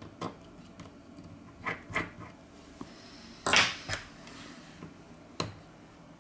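Light metallic clicks and clinks of small repair tools, a precision screwdriver and tweezers, against a phone's metal frame: about half a dozen sharp ticks, with one louder clatter about three and a half seconds in.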